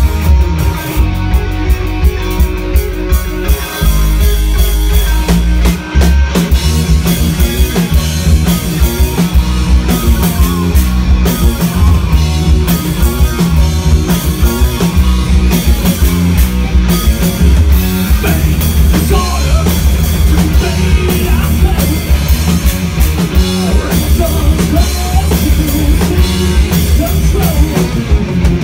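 A rock band playing loud live with electric guitar, electric bass and a drum kit keeping a steady driving beat.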